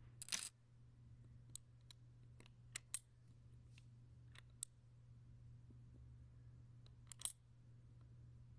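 Scattered small clicks and snaps from the lock on a toddler's buckle board being worked as the child tries to unlock it, the loudest just after the start and again near the end, over a faint steady hum.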